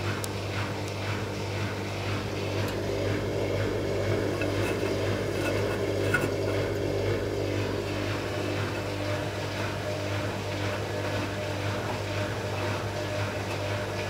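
Arçelik 5900E front-loading washing machine (Bauknecht-built) running with its drum turning a single wet bath towel, a steady motor hum with the tumbling load, as the machine tries to balance an unbalanced load before spinning.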